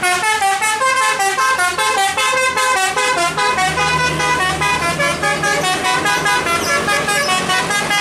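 Tour bus telolet horn, a multi-tone air-horn set, playing a fast melody of short stepped notes, with the low hum of the bus engine beneath.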